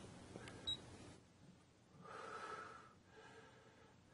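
Near silence: a couple of faint clicks of the controller's keypad buttons being pressed within the first second, then two soft breaths.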